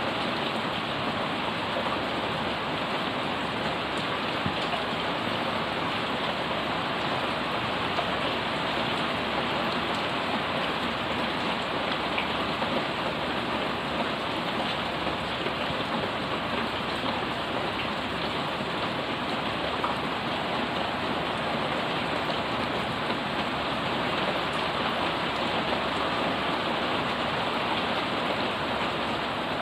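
Heavy rain falling steadily on leafy plants and a flooded paved yard: an even, unbroken hiss of drops and splashes.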